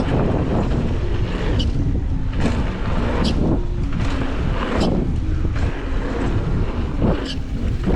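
Wind rushing over the microphone and mountain bike tyres rolling over a dirt trail at speed, with a gritty swish about once a second.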